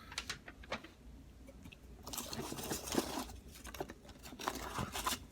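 Rustling and crinkling of packaging as sealed baseball card packs are lifted out of a box, with scattered light taps and clicks and a denser stretch of rustling about two seconds in.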